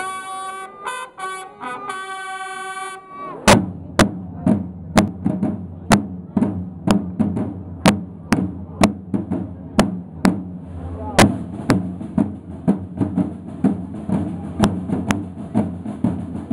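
A short fanfare of held notes on horns, then, about three seconds in, a corps of costumed side drums starts up: a march beat with heavy accents about twice a second and rolls in between.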